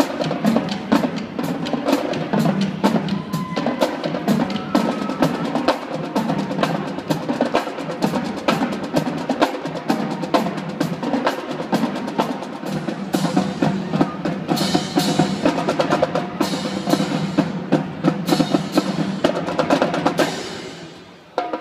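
Drum line playing a fast percussion piece: dense, rapid drum strokes and rolls with sharp clicking hits. It fades away quickly near the end.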